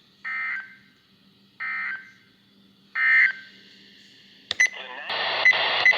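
Weather radio sounding the three short SAME end-of-message data bursts, about a second and a half apart, that close an EAS warning. A few clicks follow, then a loud hiss comes on for the last second or so.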